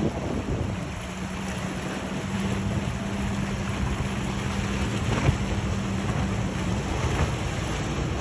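A cabin motorboat's engine running at speed as a steady low drone, over the rush of its wake and wind buffeting the microphone; the drone fades near the end. A single sharp thump about five seconds in.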